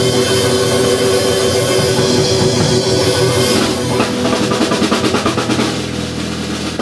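Live blues-rock band holding one long chord on guitar and bass over the drum kit and cymbals. From about halfway a fast, even drum roll builds, and the band cuts off together at the end.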